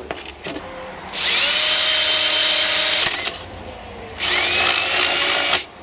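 Power drill boring a hole through a Kydex plastic console panel, run in two bursts of about two seconds, each with a whine rising as the motor spins up and then holding steady.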